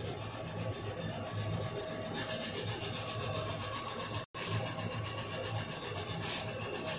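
Trotec Speedy 360 laser engraver raster-engraving: the laser head's carriage sweeps back and forth in a repeating whir over a steady machine hum. The sound drops out for an instant a little past four seconds in.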